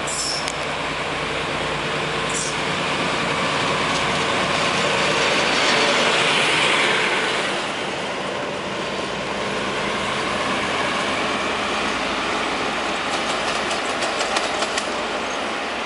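PKP class SU45 diesel-electric locomotive running light past at speed. Its engine and wheels build to their loudest about six seconds in as it goes by, then fade as it draws away. Light wheel clicks come near the end.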